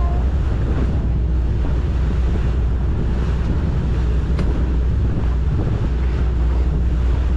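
A boat under way at sea: a steady low drone, with wind buffeting the microphone and water rushing past.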